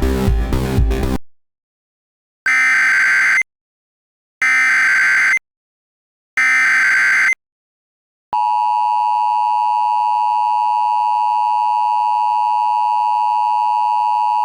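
Emergency Alert System tones: three one-second bursts of SAME header data, a warbling digital screech about two seconds apart, then the steady two-tone EAS attention signal starting about 8 s in and holding. They open an alert for a child abduction emergency (Amber Alert). Electronic dance music cuts off about a second in, before the first burst.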